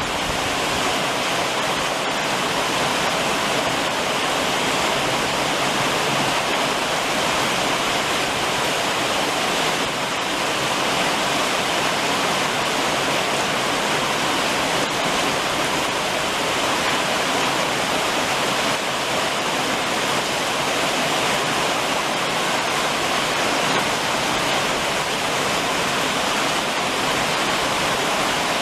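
Heavy summer rain drumming steadily on a roof: a dense, even hiss of water with a few faint ticks now and then.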